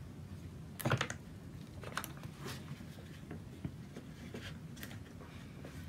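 Faint clicks and knocks of a Beretta ARX-100 rifle's polymer and metal parts being handled and turned over during field-stripping, with the bolt set to its middle position. The sharpest click comes about a second in, followed by a few lighter ones.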